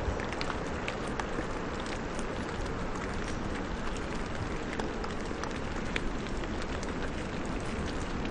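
Steady rain falling in a forest: an even hiss with scattered, irregular drop ticks over a low rumble.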